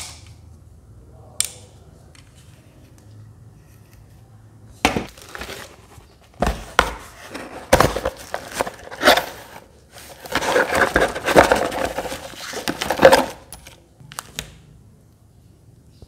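Small cardboard box being opened and unpacked by hand: a couple of clicks, then from about five seconds in a busy run of knocks, cardboard scraping and plastic packaging crinkling. It is loudest in a dense stretch a few seconds before the end and stops abruptly.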